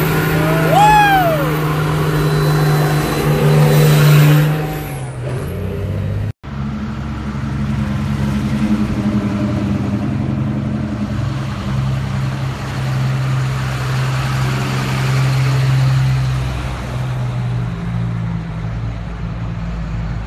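1953 Chevy 1100 rat rod's 12-valve Cummins diesel running loud, with a brief squeal that rises and falls about a second in. After a sudden cut a little past six seconds, another vehicle's engine runs steadily, its pitch shifting a little.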